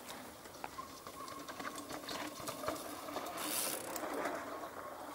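Mountain bike coasting on a dirt trail: the rear hub's freewheel buzzes steadily, with tyre noise and scattered clicks and rattles from the bike.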